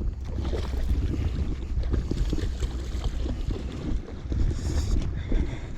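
Wind buffeting the microphone, a heavy uneven rumble, with a short higher hiss about four and a half seconds in.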